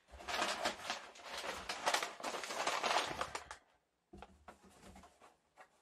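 Packaging being opened by hand: plastic or paper crinkling and rustling densely for about three and a half seconds, then a few scattered light rustles and clicks.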